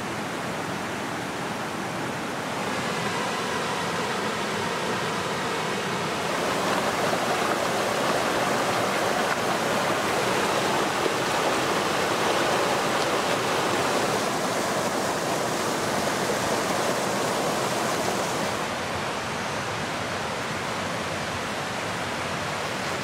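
Steady rushing noise that grows louder about six seconds in and eases off again a few seconds before the end.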